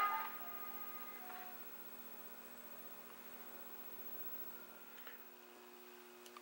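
Faint, steady electrical hum made of a few steady low tones, typical of mains hum; a further hum tone joins about five seconds in. Earlier sound fades out in the first half second.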